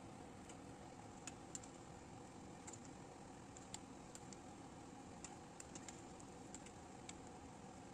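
Near silence, with about fifteen faint, light ticks at irregular intervals.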